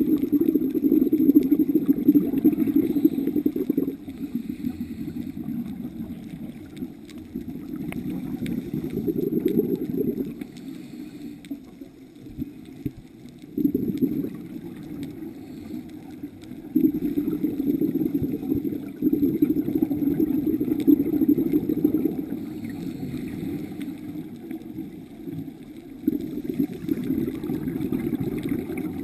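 Scuba regulator exhaust bubbles from the filming diver, heard underwater: a low rumbling gurgle that comes in surges of a few seconds, one per exhaled breath, with quieter gaps between.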